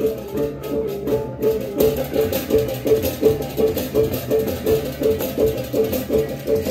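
Balinese baleganjur gamelan playing: a steady, fast pulse of ringing gong-chime notes, about three a second, over clashing cymbals.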